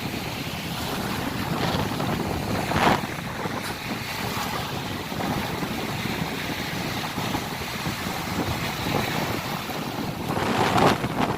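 Sea waves washing in with wind buffeting the microphone, two louder surges about three seconds in and near the end.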